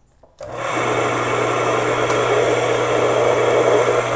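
Washing-machine motor switched on about half a second in, building quickly to a steady running hum as it spins the belt, pulley and shaft.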